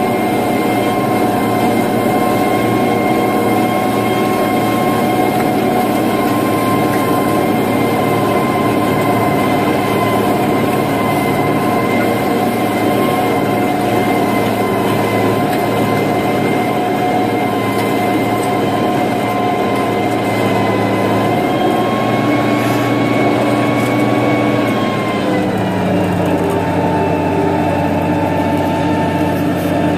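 International 3588 2+2 tractor's six-cylinder turbo diesel running steadily under load, pulling a disc through corn stubble, with a steady whine over the engine drone. About 25 seconds in, the pitch drops as the engine slows.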